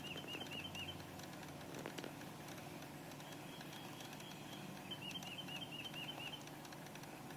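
Faint clicking from the passenger footwell of a 2004 Toyota Sienna, a fault said to have something to do with the air conditioning, over a steady low hum. A quick series of high chirps sounds twice, at the start and about five seconds in.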